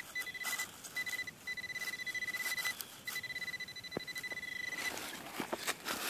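Garrett pinpointer sounding its steady high alert tone in broken stretches as its tip is pushed and scraped through leaf litter and soil over a buried metal target, with scratching and a few clicks. The tone stops about five seconds in.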